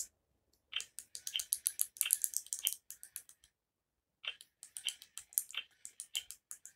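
Baby Alive Snackin' Sara doll making its electronic chewing sound, set off by toy food pressed into the centre of its mouth: fast, crunchy clicks in two runs of about three seconds with a short pause between.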